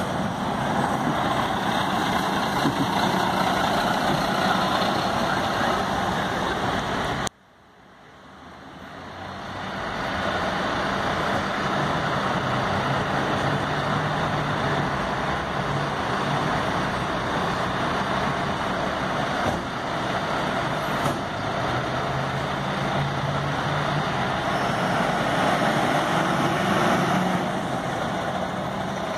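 Fire engine's diesel engine running as the truck moves slowly on cobbles. About seven seconds in the sound cuts out abruptly and fades back up over a few seconds.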